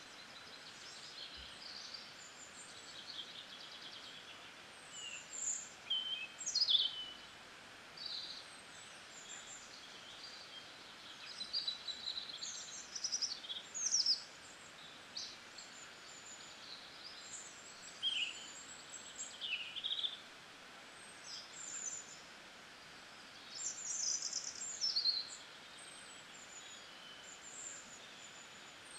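Small birds chirping and twittering: many short, quick chirps in bunches, repeating every second or two, over a steady soft hiss.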